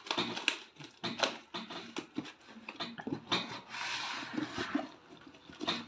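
A plastic courier mailer around a box rustling and crinkling as hands turn the parcel over, with scattered light knocks and taps. A longer stretch of rustling comes about three and a half seconds in.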